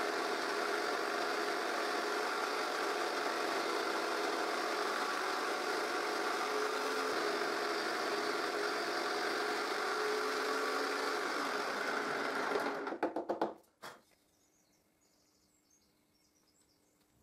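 Jigsaw mounted upside down under a table, running and cutting a 45-degree mitre through a small piece of pine fed on a crosscut sled: a steady motor buzz. About thirteen seconds in it is switched off and winds down.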